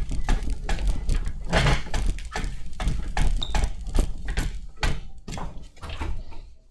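Footsteps and scattered knocks of folding chairs and a folding table on a hard floor, irregular and sharp, over a low rumble from a handheld camera being carried.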